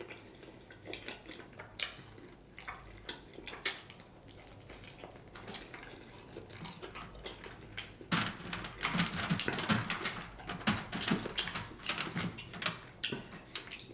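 Close-up eating sounds from fried chicken wings: scattered crisp clicks as the meat is pulled apart by hand, then denser chewing and wet mouth clicks from about eight seconds in.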